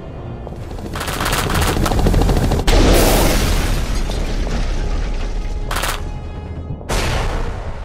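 Sound-effect gunfire: rapid machine-gun bursts, then a deep explosion boom about three seconds in that rumbles on, with further blasts near the end, all over music.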